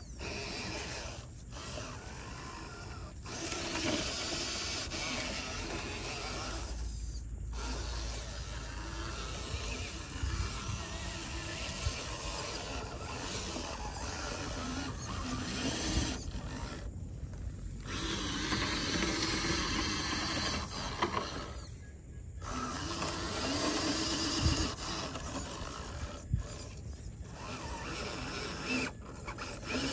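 Mechanical whirring and gear clatter that runs in spurts, breaking off briefly several times.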